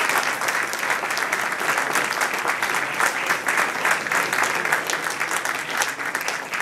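A group of people applauding, many hands clapping at once in a steady patter.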